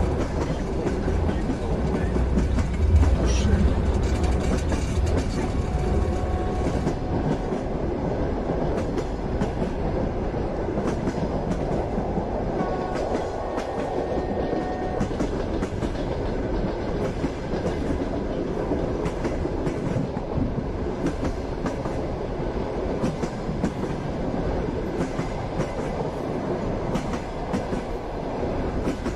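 Passenger train running on the rails: a steady rumble with the rhythmic clickety-clack of the wheels over rail joints, a little heavier and deeper in the first few seconds.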